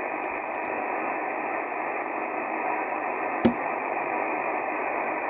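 Steady hiss of band noise from a Yaesu FT-2000 HF transceiver's speaker, tuned to 14.197 MHz on 20 metres, as the operator listens for a reply to his radio-check call and no station answers. A single sharp click comes about three and a half seconds in.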